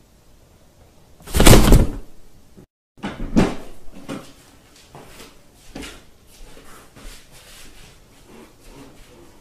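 A cardboard partition being knocked and rubbed as a cat pushes its head into a hole cut in it. One loud thud comes about a second and a half in, then a run of softer, irregular knocks and scraping.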